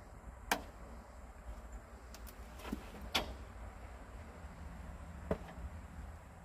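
Four short, sharp knocks spread over a few seconds as a heavy oak log is worked across 4x4 skids with a cant hook, over a steady low rumble.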